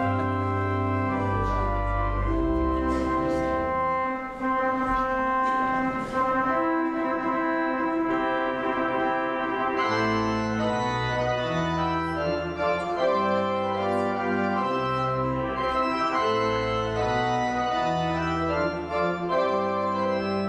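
Church pipe organ playing a recessional: full, sustained chords changing every second or two over deep pedal bass notes.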